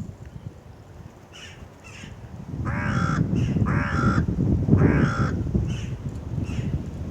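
Corvids calling: short harsh calls every second or so, and three loud, hoarse, drawn-out caws in a row near the middle.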